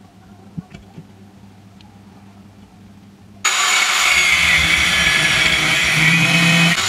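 A couple of light clicks while a steel angle bar is marked out. About three and a half seconds in, an angle grinder's abrasive cut-off disc starts cutting the steel angle, a loud, steady, harsh grinding noise.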